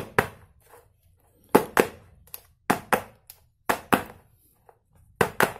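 Round metal cake pan full of cake batter lifted and banged down on a tiled floor, five times, each a quick double knock. The banging drives the air bubbles out of the batter before it is steamed.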